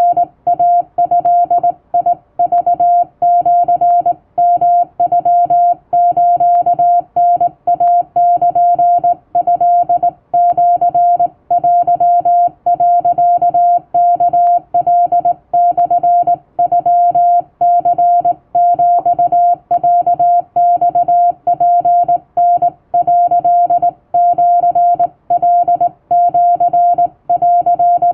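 Hand-keyed Japanese wabun Morse code: a single steady beep tone switched rapidly on and off in dots and dashes, with short pauses between characters.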